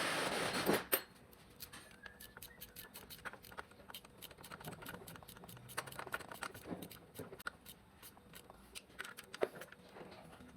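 A loud rushing noise cuts off suddenly about a second in, followed by light metallic clicks and clinks of small tools and parts being handled during engine teardown work.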